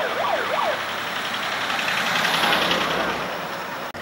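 Police car siren wailing up and down and fading out within the first second, followed by the steady rushing noise of vehicles driving past.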